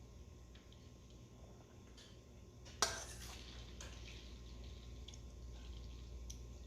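A utensil clinking against a bowl during eating: one sharp clink about three seconds in with a brief ring, and a few faint ticks around it.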